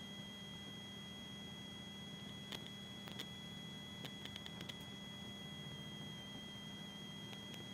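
Steady high-pitched electrical whine over a low hum, from the rally car's intercom and recording feed rather than the engine, with a few faint clicks and a quick run of about five clicks around the middle.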